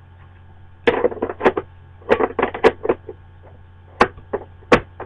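Two short bursts of rapid clicking and knocking from hard objects being handled, then two sharp single clicks near the end: the clatter of a pencil being fetched from a hamster cage.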